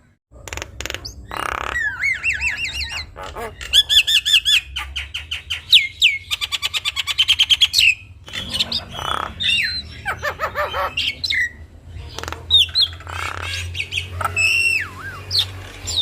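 Javan myna singing a busy, varied song of wavering whistles and harsh squawks, with a fast run of rapidly repeated notes midway. This is the full, phrase-packed song used as a tutor recording for young mynas to copy.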